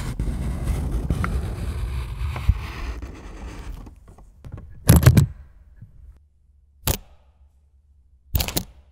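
Close-miked handling of a stiff handbag: a rough scraping rustle for about four seconds as the bag and its handles are moved, then three sharp knocks a second or two apart as the handles and their fittings knock against the bag.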